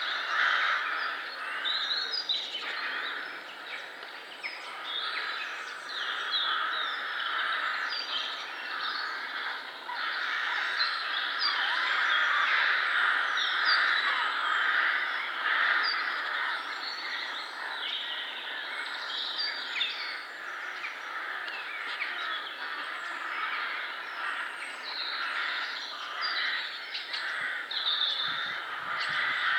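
Woodland birdsong: many small birds chirping and singing together, with crows cawing, over a steady background hiss.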